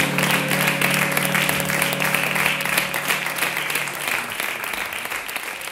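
Audience applauding over a sustained low chord. The chord stops about four seconds in, and the applause fades out.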